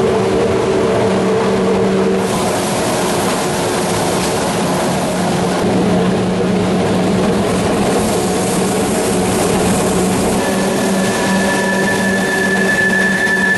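Vintage electric mountain-railway locomotive and its train running steadily on the track, a continuous rumble of wheels on rail with a steady low hum from the drive. About ten seconds in a thin high whine joins as the train rounds a curve.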